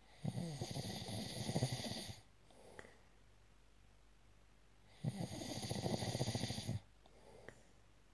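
Snoring: two long rattling snores about five seconds apart, each followed by a short, softer breath.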